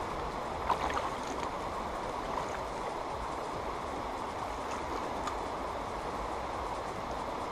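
Shallow river water running steadily over a gravel bed and around weed clumps, with a few faint short ticks about a second in and once more later.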